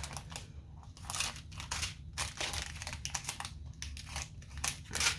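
Small plastic bags of diamond painting drills crinkling as they are handled, in irregular short crackles.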